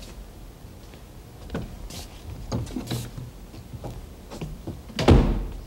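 Footsteps and knob clicks as an interior door is opened, then the door shuts with a thump about five seconds in.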